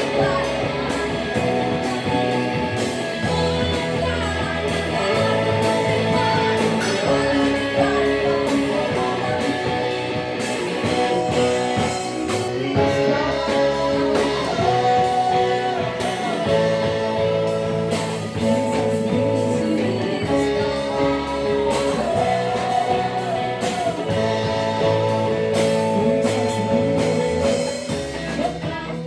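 Live rock band playing a song together: drum kit keeping a steady beat, electric and acoustic guitars, bass and keyboard, with singing over the top.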